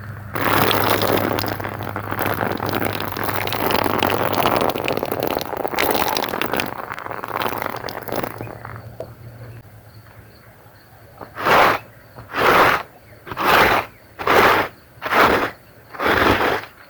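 Carpet being washed: about eight seconds of dense, crackly scraping noise over a low steady hum, fading out, then regular strokes across the wet carpet about once a second.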